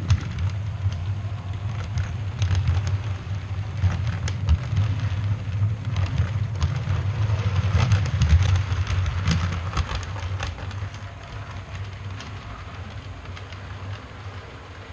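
Dubbed train sound effect for a model railway: a passing train's low rumble with a run of sharp clicks from the wheels, fading away over the last few seconds.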